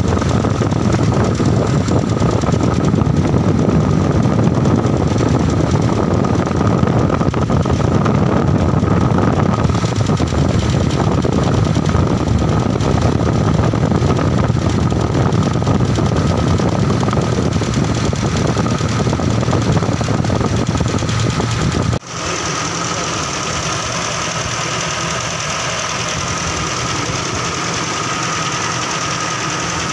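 Toyota 5K four-cylinder pushrod engine running steadily on its first start after an oil change and valve adjustment. Just past two-thirds through, the sound drops abruptly and carries on quieter, with less low rumble.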